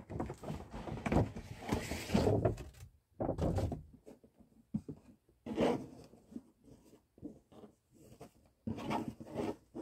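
A large stiff paper shopping bag and cardboard gift box being handled: paper rustles and scrapes as the box is drawn out of the bag, and there is a thud a little after three seconds as the box is set down. Shorter rustles and brushing follow as the ribbon on the box is worked loose.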